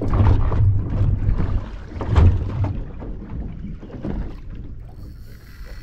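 Wind and water noise on a small boat at sea: a low rumble with sudden louder surges near the start and about two seconds in.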